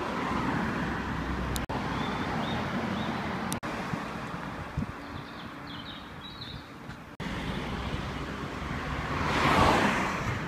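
Steady street traffic noise that drops out abruptly three times where clips are joined. Near the end a car drives past close by, the red Ford Fiesta ST, its noise swelling and then fading.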